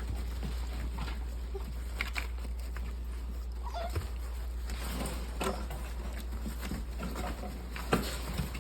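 Eight-week-old Cane Corso puppies giving short whines and yips among scuffling noises. There is a steady low hum underneath and a sharp knock near the end.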